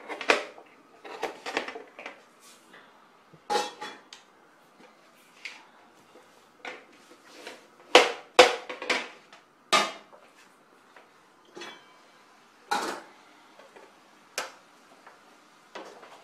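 Kitchen clatter: a knife knocking on a plastic cutting board while vegetables are chopped, with clinks of dishes and utensils. The knocks come irregularly rather than in a steady chopping rhythm, and the loudest cluster falls a little past the middle.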